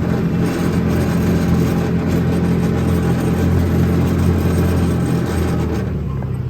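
The 150cc GY6 single-cylinder four-stroke engine of a Hammerhead R-150 side-by-side runs steadily under way on a test drive, then eases off near the end. It keeps running on the replacement carburetor.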